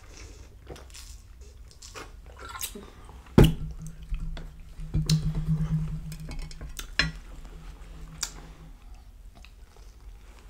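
Eating and drinking sounds: swallows from a plastic drink bottle, a sharp knock about three and a half seconds in, and a low steady hum for several seconds, then handling and biting into a submarine sandwich near the end, with chewing and small clicks.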